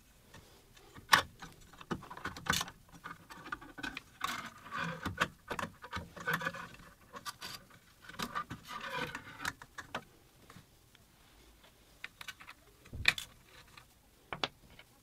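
Small metal parts clicking, clinking and scraping as the X-carriage of a WorkBee CNC router is worked off its aluminium extrusion rails by hand. There are a few sharp clicks, and a longer spell of rattling and scraping in the middle.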